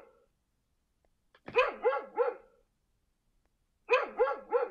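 Dog barking in quick runs of three barks, one run about a second and a half in and another near the end.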